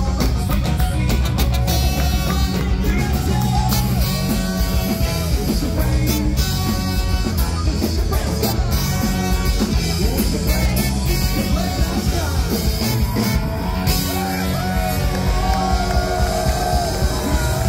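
Ska-punk band playing live: drums, electric guitar, trombone and trumpet with singing, loud and continuous.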